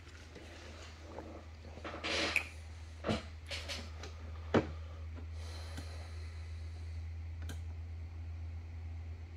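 A few scattered clicks and knocks, the loudest about four and a half seconds in, and a short noisy rush about two seconds in, over a steady low hum.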